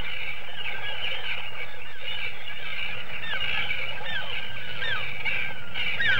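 A colony of kittiwakes calling together: many short calls overlapping in a continuous din, a lot of them sliding down in pitch.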